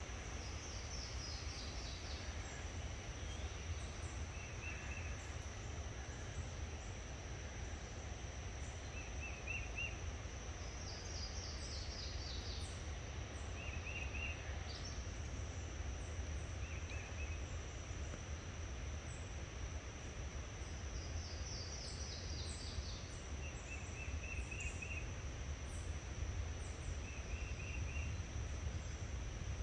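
Summer woodland ambience: a steady high insect drone, with a bird singing a short descending run of quick notes about every ten seconds and briefer chirps in between, over a steady low rumble.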